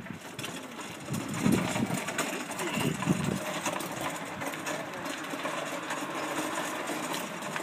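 Wooden hand wagon on rubber wheels rolling over rough asphalt behind a walking dog, with a steady rattling rumble.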